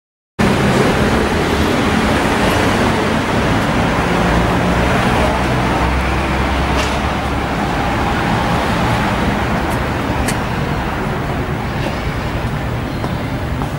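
Steady city street traffic: a constant wash of passing cars, with a heavier low vehicle rumble swelling about halfway through.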